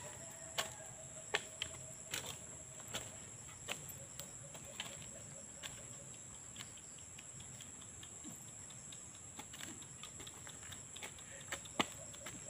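Hand hoe chopping into soft soil while weeding, a run of irregular short strikes, some sharper than others.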